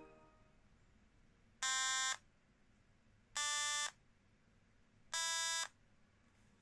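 M5Stack ESP32 controller's small built-in speaker sounding three short electronic beep tones, about half a second each and evenly spaced, one for each front button pressed. Each tone is a step higher than the one before, the programmed notes middle C, D and E.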